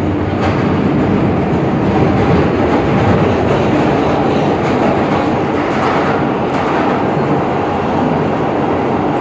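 Alstom R160A subway train running along the track: a steady rumble with a few faint clicks of wheels over the rails.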